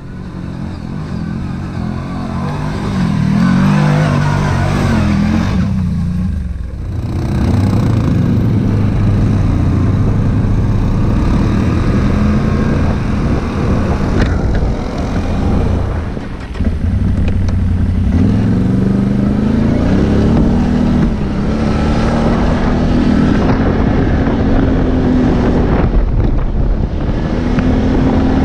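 Quad bike (ATV) engine revving up and down while riding off-road, heard close from on board the quad. The engine note drops away briefly twice, about six and sixteen seconds in.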